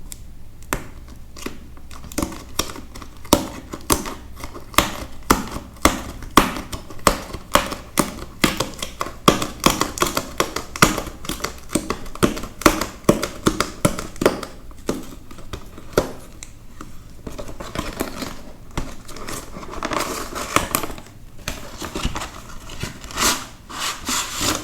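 Plastic and foil packaging being crinkled and torn open by hand, with many sharp crackles and clicks and a denser stretch of rustling near the end.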